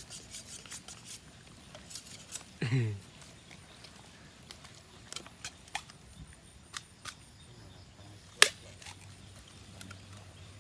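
Scattered sharp clicks and taps, with one loud click about eight and a half seconds in, and a short pitched cry that falls in pitch just under three seconds in.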